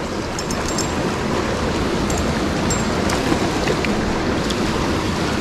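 Creek water rushing over rocks and a small cascade, a steady, even rush.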